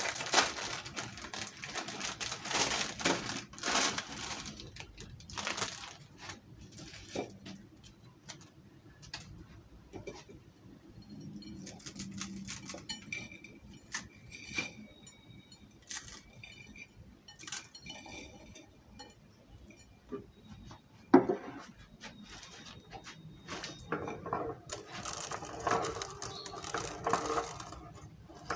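An electric meat grinder runs at the start and again near the end. In between come scattered clinks and knocks of metal and dishware being handled.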